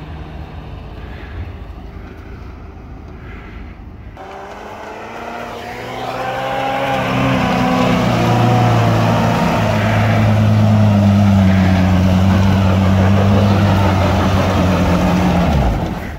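UAZ off-roader's engine running, then revving up about four seconds in and holding high revs under load in snow for about eight seconds before dropping off near the end.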